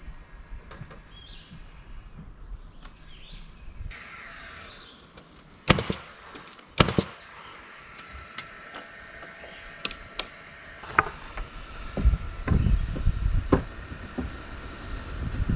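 Outdoor background with birds chirping, broken by two sharp knocks a little over a second apart about halfway through and a few lighter knocks later. An uneven low rumble starts near the end.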